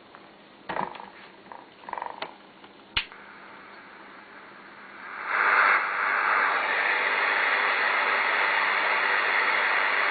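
Waxiba XB-472URT portable radio receiver's loudspeaker: a few short crackles and a click, then about five seconds in, a steady static hiss from tuning between stations.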